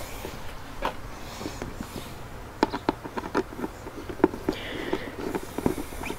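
Irregular small clicks and taps of a Phillips screwdriver turning screws into a motorcycle windshield's mounting bracket while hands handle the screen and hardware, coming more often about halfway through.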